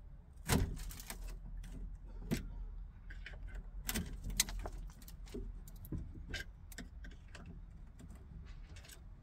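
A screwdriver working at the metal frame and fixings of a Fiat 126's triangular quarter vent window: irregular light metallic clicks, taps and small scrapes, with the glass and frame rattling slightly as it is held.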